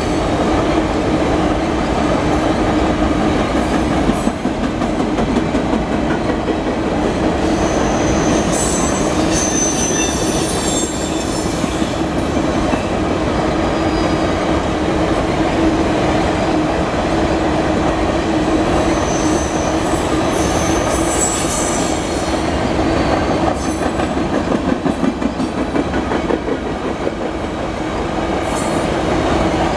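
Freight train hopper cars rolling past with a steady rumble of wheels on rail and clickety-clack. High-pitched flange squeals rise briefly about a third of the way through and again about two-thirds through.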